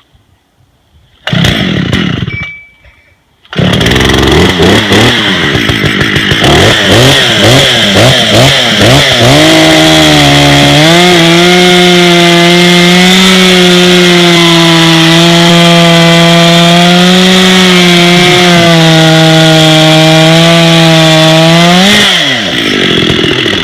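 Dolmar 7900 two-stroke bow chainsaw firing briefly and dying, then starting and revving unevenly. After about ten seconds its pitch drops and holds steady as the bow bar cuts a log under load. Near the end the pitch rises as it breaks free of the cut, then it eases off.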